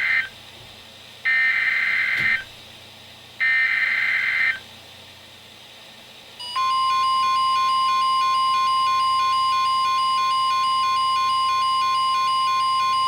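NOAA Weather Radio emergency alert broadcast from a weather radio. First the tail of one SAME digital header burst, then two more harsh bursts of data noise, each about a second long. About six and a half seconds in, the long steady warning alarm tone begins, announcing a flood warning.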